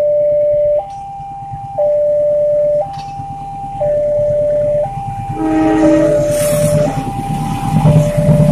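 Level-crossing warning alarm alternating between a low and a high electronic tone about once a second. About five and a half seconds in, a locomotive horn sounds briefly over it, and the rumble of the approaching train grows louder toward the end.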